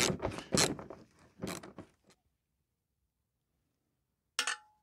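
Ratchet with a 10 mm socket undoing a rusty bolt, its pawl rasping in a run of short, uneven strokes that stop about two seconds in. Near the end there is a single metallic clink with a brief ring, metal landing on a steel magnetic parts tray.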